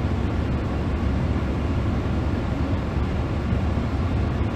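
Steady low rumble and hiss inside a truck's cab with the air conditioning running, loud enough that the AC drowns out the voice.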